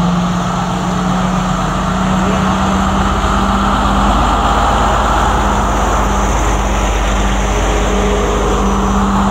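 Class S14 diesel multiple unit passing slowly and close by: the power car's diesel engine runs with a steady hum over a low rumble of wheels on rail, and the rumble grows about two seconds in as the power car comes alongside.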